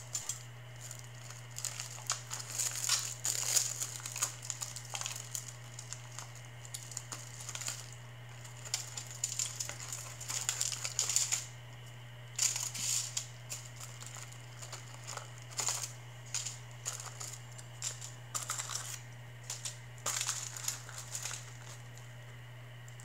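Crinkling and rustling of an MRE cracker pouch being opened and handled, in irregular bursts, over a steady low hum.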